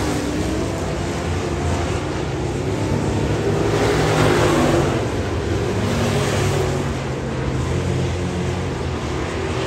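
Street stock race car engines running on a dirt oval, a steady mechanical drone that grows louder about four seconds in and eases off again.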